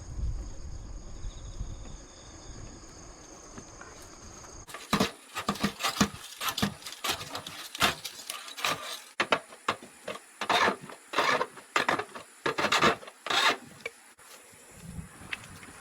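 Repeated rasping strokes of a hand tool working wood or ground, about two a second, starting about five seconds in and stopping near the end. Insects trill steadily in the background.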